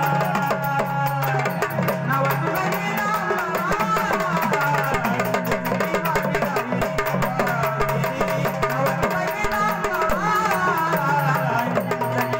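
Marathi Gondhali devotional folk song: a voice singing a wavering melody over a steady drone and a dense, fast drum and percussion beat.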